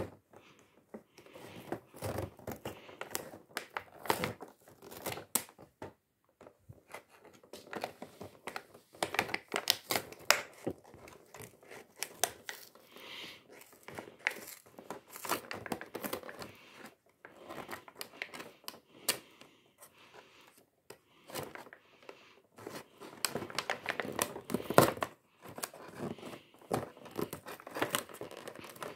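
Clear plastic toy packaging being handled and torn open, with irregular crinkling and crackling throughout.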